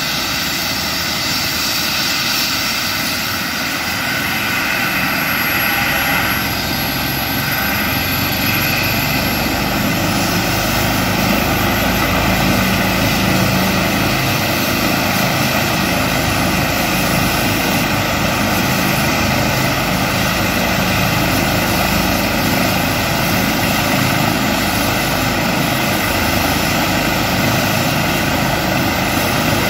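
Airbus H135 trauma helicopter running on the ground, its turbine engines giving a steady whine over the rotor noise, getting a little louder over the first dozen seconds.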